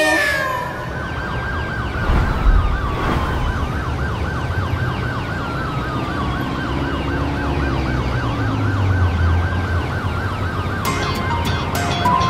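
Siren sound effect in a K-pop track: a fast up-and-down yelp about three times a second layered with slower rising and falling wails, over a low bass drone. Near the end a clicking beat comes back in.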